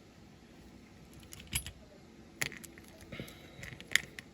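Light clicks and taps of small diecast toy-car parts being handled and fitted together: the suspension piece and axles. The sharpest clicks come about a second and a half in, about two and a half seconds in and near the end.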